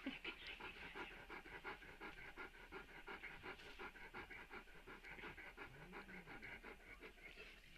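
Nursing Great Dane mother panting quickly and steadily, several breaths a second.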